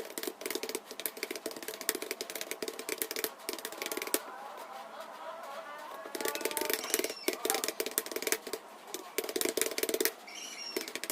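Computer keyboard typing, a fast, dense clatter of keystrokes that thins out briefly a few seconds in and again near the end.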